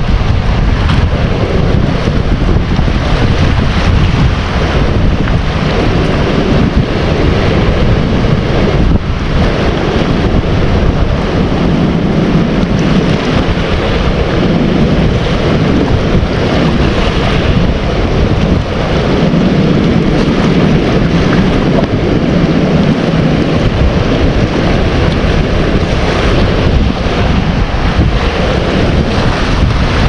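Small sea waves lapping at the shore, with steady wind rumbling on the microphone: a loud, unbroken rush of noise.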